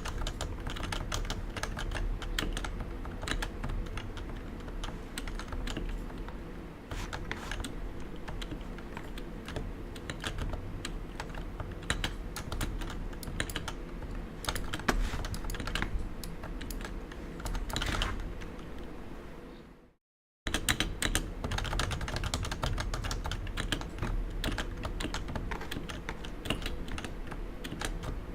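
Continuous fast typing on a Realforce 87U tenkeyless keyboard with 55 g Topre electrostatic capacitive switches, rapid irregular keystrokes. The sound cuts out completely for about half a second two-thirds of the way through, then the typing resumes.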